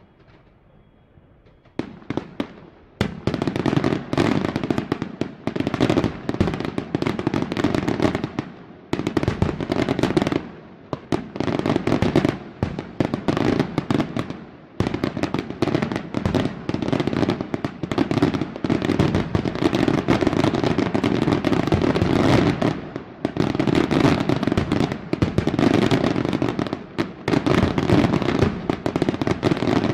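Aerial fireworks display: after a couple of quiet seconds, a dense, continuous barrage of shell bursts with rapid bangs and crackling begins. It eases only briefly about a third of the way and halfway through.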